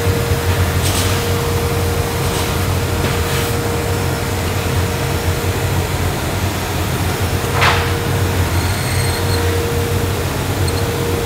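Flooring-mill woodworking machinery running as boards travel on its feed belt: a loud, steady low drone with a constant hum, and a few short knocks or hisses, the clearest about eight seconds in.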